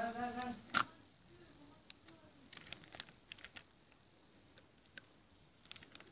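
Adhesive tape being peeled off a painted clay flower pot and handled: a sharp click just under a second in, then scattered crinkles and crackles. A brief voice sounds at the very start.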